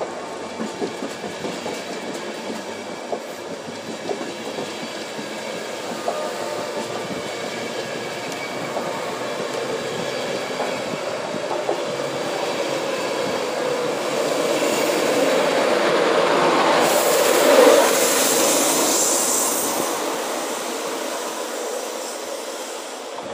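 LNER Azuma (Hitachi Class 800-series) train running along the platform. Its wheels click over the rail joints at first, then a rushing rumble swells to a peak near the end and fades away.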